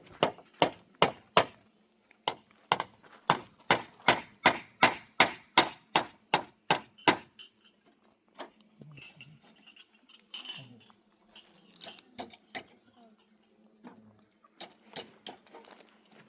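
Hammer driving nails into timber: sharp, metallic-edged strikes at about two to three a second for some seven seconds, then a pause and a few more strikes near the end.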